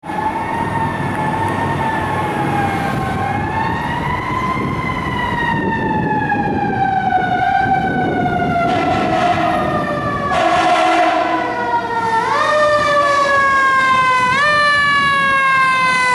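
Fire engine siren wailing, its pitch drifting slowly down and back up; from about twelve seconds in it climbs quickly and slides slowly down again, twice. A low rumble runs under the first half.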